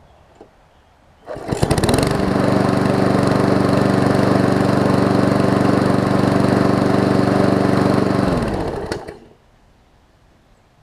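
Briggs & Stratton Quantum single-cylinder engine on a push mower starting up about a second in and running steadily for about six seconds. It then shuts off and winds down, its pitch falling. It runs smoothly and cleanly after a new flywheel key and a replacement carburetor.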